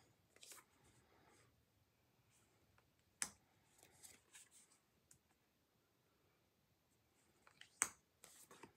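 Thick matte tarot cards being turned over and laid down one at a time on the deck: three faint, sharp taps a few seconds apart, each with a light sliding rustle of card on card.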